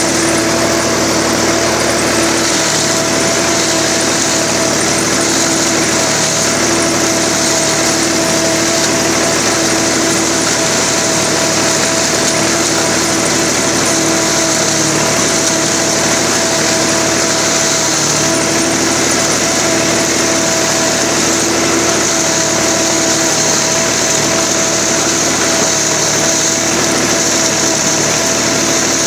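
Zmaj 214 corn picker and the tractor driving it, running steadily while harvesting maize: an even machine drone with a constant hum over a band of hiss.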